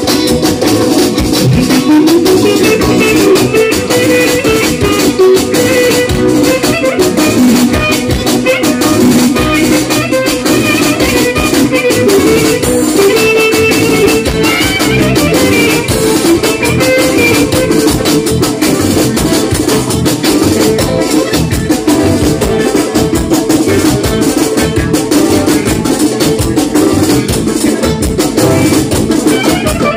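Live band music played loud: a clarinet playing the melody over keyboard and an electronic drum kit keeping a steady dance beat.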